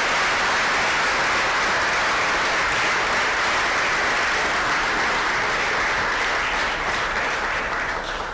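Audience applauding, steady and full, then tapering off near the end.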